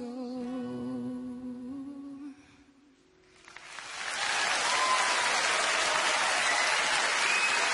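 A woman's voice holding one long sung note, wavering slightly, at the close of a background pop song; it fades out about two and a half seconds in. After a brief near silence, a steady loud rushing noise builds up from about three and a half seconds.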